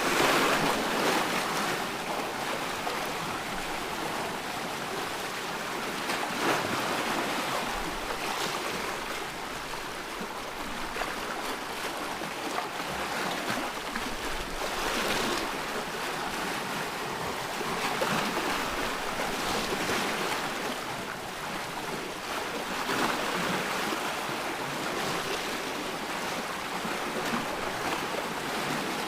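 Ocean surf: a steady wash of waves breaking on a shore, swelling louder every few seconds.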